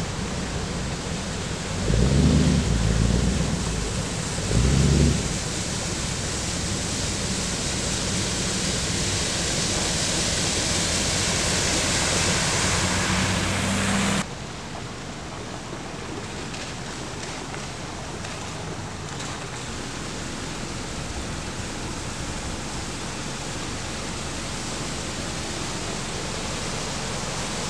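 Steady hiss of tyres spraying through floodwater as vehicles drive along a flooded street, with two brief low rumbles a couple of seconds in and about five seconds in. The hiss swells toward halfway, then drops suddenly to a quieter steady hiss.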